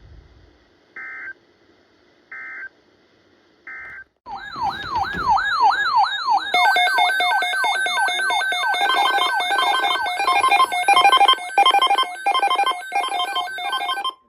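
Emergency Alert System end-of-message data bursts: three short two-tone digital squawks about a second apart. They are followed by a loud electronic alert siren sweeping rapidly up and down about three times a second. That gives way to layered steady electronic alarm tones that pulse about twice a second.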